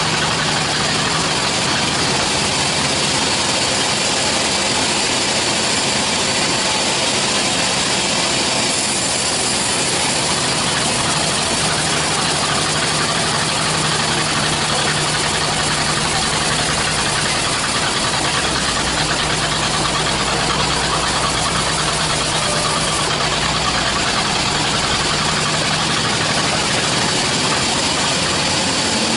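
A large band sawmill running with a steady, loud drone as its blade cuts through a log section being fed by hand.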